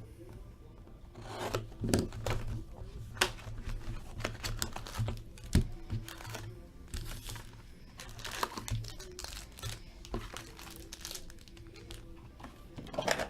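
Plastic wrapping on a box or packs of Upper Deck hockey trading cards being torn open and crinkled by hand, as irregular rustles with sharp crackles and clicks starting about a second in.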